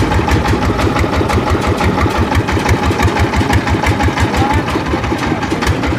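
Small fishing boat's engine running steadily, with an even, fast low pulse of about eight to nine beats a second.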